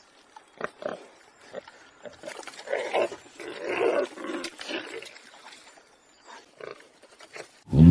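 A warthog grunting in short rough bursts, a few at first, then a denser run of louder grunts through the middle. In the last instant a loud, low pitched animal call begins.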